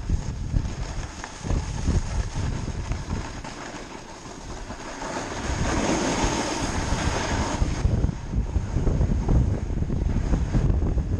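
Wind buffeting the microphone in gusty low rumbles. A stronger rushing hiss builds up about halfway through and cuts off suddenly about three seconds later.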